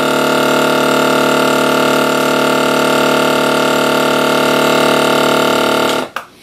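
Countertop vacuum sealer's pump running with a steady hum as it draws the air out of a bag holding a burger patty again, because the first pass didn't pull properly, likely from a fold in the bag. The pump cuts off about six seconds in, followed by a couple of sharp clicks as the sealer's button is pressed.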